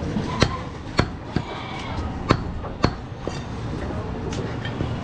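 Butcher's cleaver chopping goat meat on a wooden log chopping block: about seven sharp knocks, spaced irregularly, over steady background noise.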